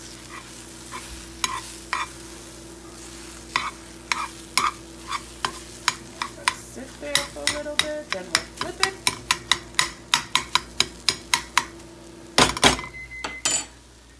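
A spoon tapping and scraping against a nonstick frying pan while scrambled eggs are stirred, over a faint sizzle. The taps come quickly, about four a second, for several seconds past the middle, and there are a few louder knocks near the end.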